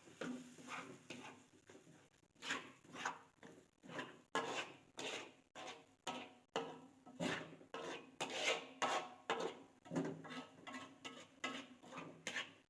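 Repeated scraping or rasping strokes of kitchen food preparation, about two a second, with a short pause about two seconds in.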